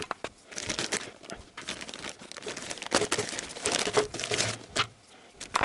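Clear plastic packaging of a new timing belt crinkling and rustling in irregular bursts as it is opened by hand.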